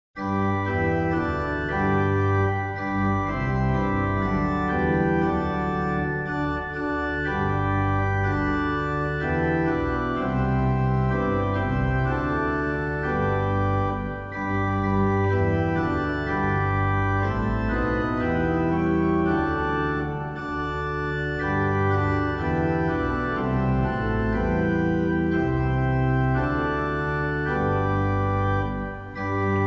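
Organ music in full, sustained chords that change every second or so, hymn accompaniment, starting abruptly out of silence.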